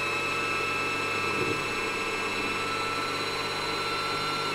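Silvercrest sewing machine's electric motor running at a steady pace on the pedal, spinning the bobbin winder to fill a bobbin with thread: a steady high whine that sags only slightly in pitch.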